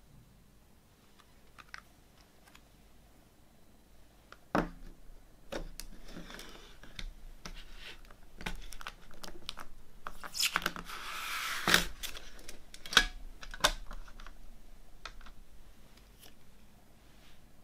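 Plastic CD jewel case handled and opened, starting about four seconds in: a scatter of sharp plastic clicks and snaps from the hinged lid and disc tray, with paper rustling as the booklet is slid out of the lid.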